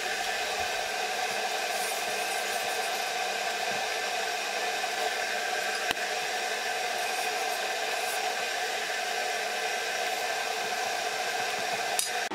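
Steady whirring drone of a fan or small motor, with a sharp click about halfway through and another near the end from a wire whisk knocking the cast-iron pot.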